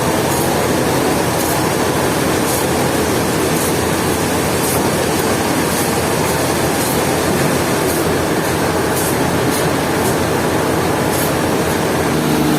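Sawmill machinery running steadily, a loud continuous mechanical noise with faint high ticks recurring about once a second.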